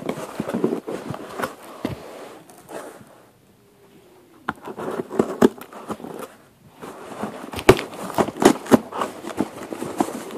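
Cardboard box being handled and opened by hand: rustling and scraping with sharp clicks and knocks, a short lull about three seconds in, and the loudest knocks near the end.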